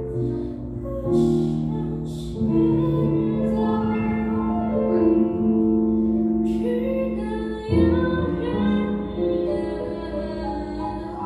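Live song: a woman singing over piano chords played on a Nord Electro 6 stage keyboard, with long held notes; the music tapers off near the end as the song closes.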